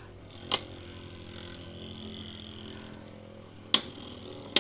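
Two Beyblade Metal Fusion spinning tops, Fang Leone and Diablo Nemesis, whirring on a plastic stadium floor. They clash with sharp metal clicks about half a second in and twice near the end.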